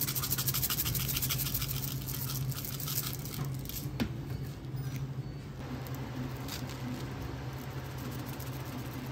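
A fast run of short scratchy strokes, like quick stirring or scrubbing, for about three and a half seconds, then a single click about four seconds in, over a steady low hum.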